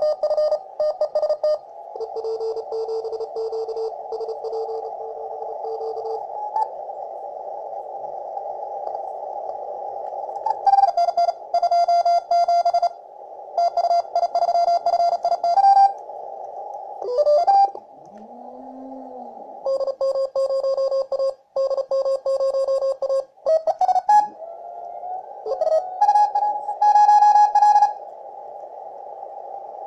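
Amateur shortwave receiver audio on the 20-metre CW band: Morse code signals beeping on and off at several pitches over a steady hiss of band noise narrowed by a CW filter. A few tones slide in pitch as the receiver is tuned across the band.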